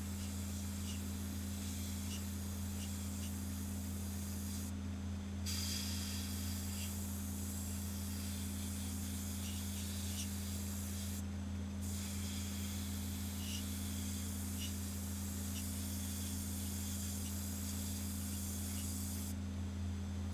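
Airbrush hissing as it sprays paint, the air stopping three times for under a second as the trigger is let off, over a steady low hum.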